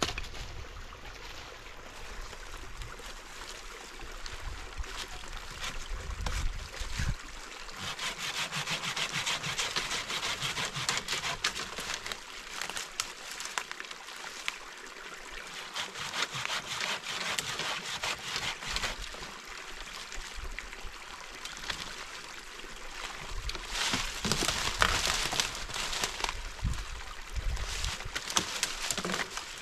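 A dry branch being sawn by hand: rapid rasping strokes of a hand saw through dead wood, in two spells, one about a quarter of the way in and again near the end.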